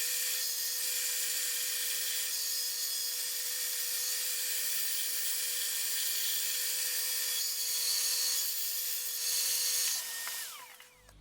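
Bandsaw running steadily while cutting wood, with a constant motor hum and a hiss of blade on wood. About ten seconds in it is switched off and the motor winds down with a falling pitch.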